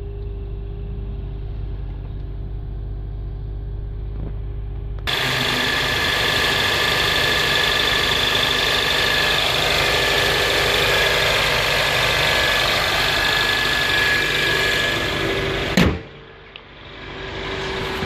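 Honda Accord CL9's 2.4-litre DOHC i-VTEC four-cylinder idling steadily and smoothly. For about five seconds it is a low hum heard from inside the cabin; then it is heard close up in the open engine bay, louder and fuller, with steady high whines over the running. Near the end a brief whoosh comes, and the engine drops back to a quieter hum.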